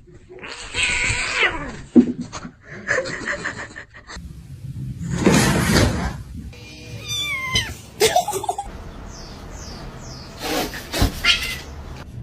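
Cats meowing several times in separate calls, some sliding down in pitch. There is one loud, noisy burst of sound about five seconds in.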